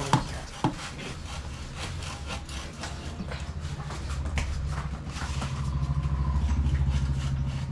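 Bajaj Pulsar NS200's single-cylinder engine running through a freshly fitted aftermarket exhaust, a low pulsing note that swells louder from about four seconds in and eases off near the end. Two sharp knocks sound in the first second.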